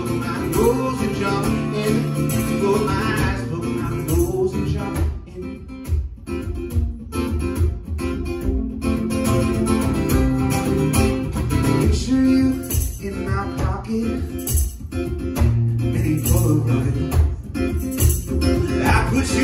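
Live acoustic guitar strumming over a steady kick-drum beat: an instrumental break in a one-man-band song. The playing thins out and drops in level about five to nine seconds in, then picks up again.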